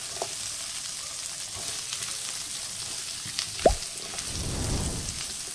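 Diced green bell pepper and onion sizzling as they sauté in a nonstick frying pan, in the fat left from frying chicken, while a silicone spatula stirs them. There is one short knock about two-thirds of the way through, and the stirring grows louder shortly after.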